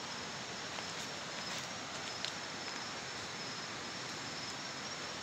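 An insect's steady high-pitched trill running unbroken over a steady background hiss.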